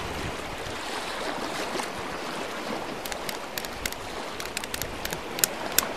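Steady rush of moving water, surf-like. Sharp, high clicks are scattered through the second half.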